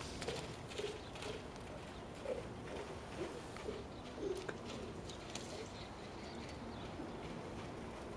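Hoofbeats of a horse moving loose on a wet sand arena, cantering and then trotting, with short bird calls over them during the first half.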